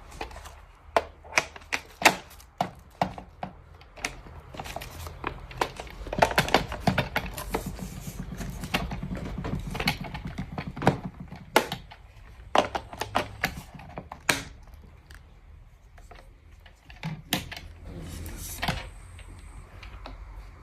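Irregular run of sharp clicks and knocks, some loud, as of the plastic parts and nozzles of a cordless upright vacuum cleaner being handled and fitted together; the vacuum's motor is not running.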